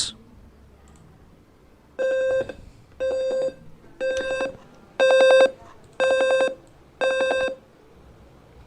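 Piezo speaker of a simulated Arduino fire-alarm circuit beeping as an alarm signal: six short buzzy beeps, one a second, starting about two seconds in.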